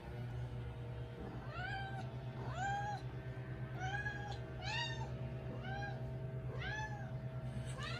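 Domestic cat meowing repeatedly: about seven short meows, each rising then falling in pitch, roughly one a second, starting about a second in.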